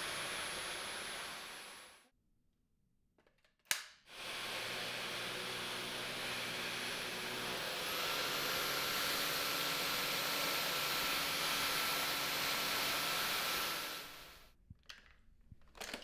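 Dyson V15 Detect cordless stick vacuum running with a steady rush of air and a high whine. It cuts out about two seconds in, gives a sharp click, and starts again about four seconds in. Around eight seconds in it gets a little louder and a new whine comes in as the cleaner head meets carpet. It stops near the end, followed by a few plastic clicks as a tool is fitted to the wand.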